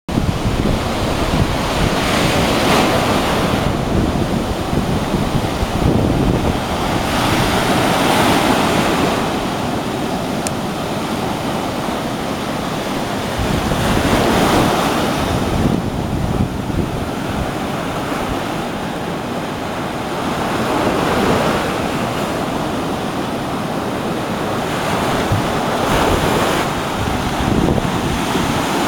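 Sea surf breaking and washing up a sandy beach, the rush of water swelling and fading every few seconds. Wind buffets the microphone, adding a low rumble.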